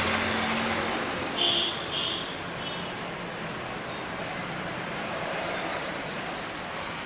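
Steady outdoor background noise with an insect, cricket-like, trilling in an even high pulse throughout. Two short high chirps come about a second and a half in, and a low engine hum fades away over the first second or so.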